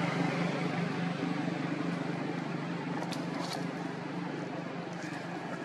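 A motor vehicle's engine humming steadily and slowly fading away as it moves off, with a few short high chirps about halfway through and near the end.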